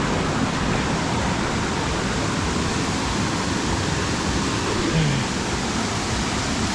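Waterfall: water falling and rushing steadily, a constant roar.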